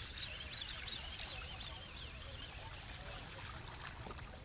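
Birds twittering over a low outdoor rumble, with light splashing from a hooked fish thrashing at the surface near the end.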